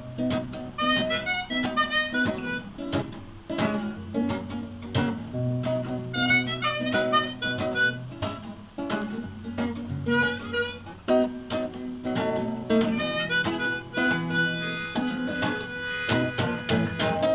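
Harmonica held in a neck rack playing an instrumental break of quick note runs and held notes, over a strummed acoustic guitar.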